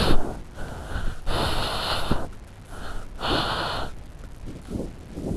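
A person breathing heavily: three loud, noisy breaths, each under a second long, about a second and a half apart.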